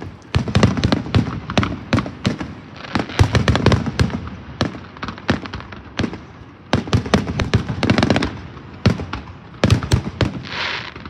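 A rapid-fire barrage of aerial fireworks: many sharp cracks and booming bursts in quick volleys, close enough together that they overlap. Near the end there is a brief hiss.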